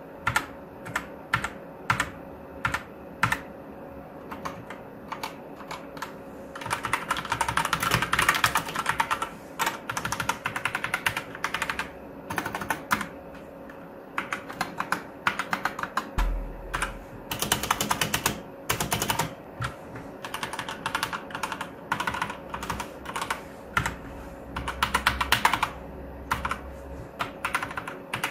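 Everest KB-GX8 Redcore mechanical keyboard with red switches being typed on: single keystrokes about every half second at first, then bursts of fast typing alternating with slower presses.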